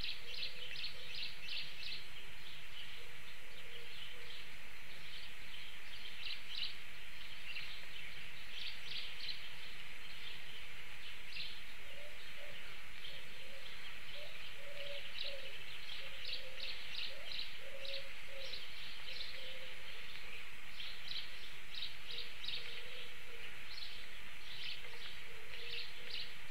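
Birdsong: many small birds chirping and twittering in clusters over a steady hiss, with a dove cooing low at intervals, most through the middle.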